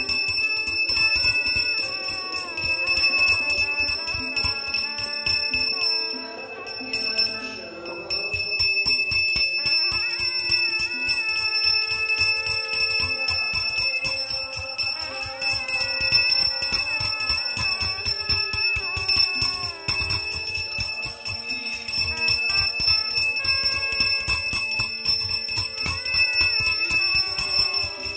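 A puja hand bell rung rapidly and continuously during an aarti, its high ringing steady throughout, with a devotional melody under it. The ringing drops away briefly about six seconds in, then resumes.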